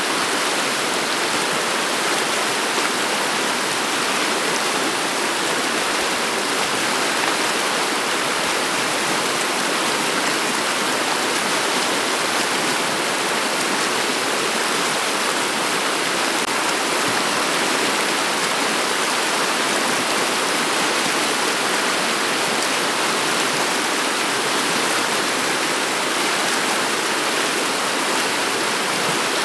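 Shallow river water flowing over a stony bed: a steady, even rush of running water.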